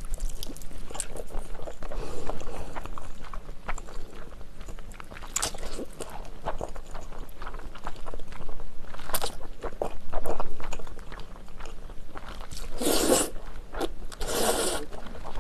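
Close-miked chewing and slurping of jajangmyeon (noodles in black bean sauce), with many small wet mouth clicks. Two longer, louder slurps come near the end.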